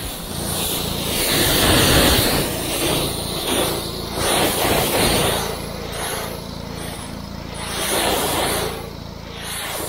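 Gas pressure washer's Honda engine running steadily, with the hiss of the high-pressure water jet on composite deck boards swelling and fading several times as the wand is swept.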